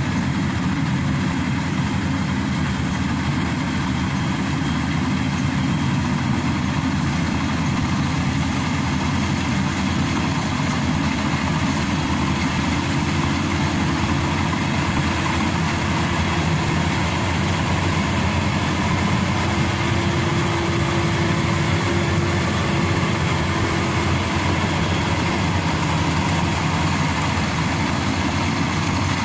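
Maxxi Bimo Evo Xtreme rice combine harvester running steadily while it cuts and threshes rice, its engine and threshing drum making a constant heavy hum.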